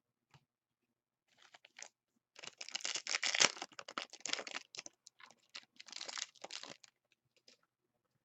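Trading card pack wrapper being torn open, crinkling and tearing in two main stretches.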